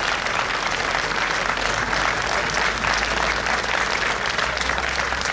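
Crowd applauding: a steady patter of clapping with no bangs.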